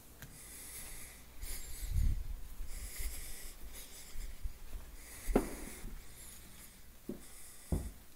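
Footsteps of a person walking on a carpeted floor, a few soft thumps, with breathing and rustling close to the phone's microphone.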